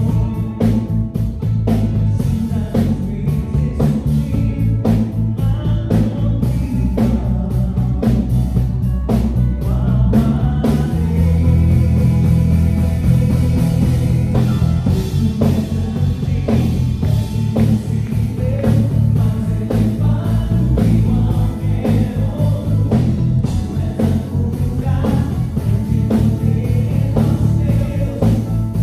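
Worship song played by a band with drum kit, bass and guitar, with singing. The drums and cymbals are busiest for about the first ten seconds, then the sound turns fuller and more sustained.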